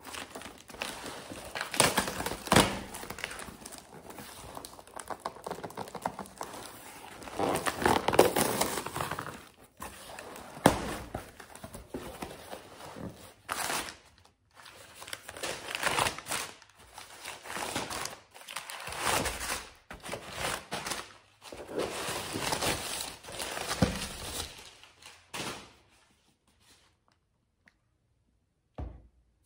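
Crumpled packing paper being pulled out of a box and handled, crinkling and rustling in repeated bursts, with a few knocks. The handling stops a few seconds before the end, leaving one short knock.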